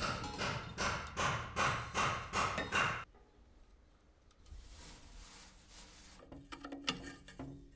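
A quick run of regular knocks, about four a second, from a hand tool working on metal, stopping suddenly after about three seconds. Then a quiet stretch with a faint hiss and a few light clinks near the end.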